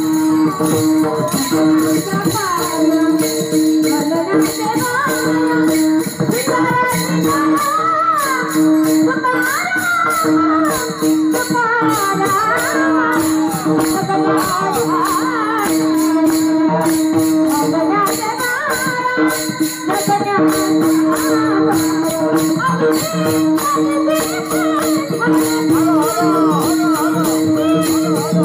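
Warkari devotional singing of a Bhairavi: young female voices sing a gliding melody over a steady drone, while a chorus of small brass hand cymbals (taal) keeps a continuous, even beat.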